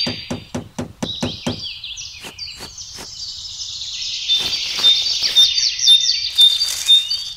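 Small hammer tapping a miniature fence post into sand: quick light knocks, about five a second, for the first second and a half, then a few scattered taps. Birds chirp throughout, most busily in the second half.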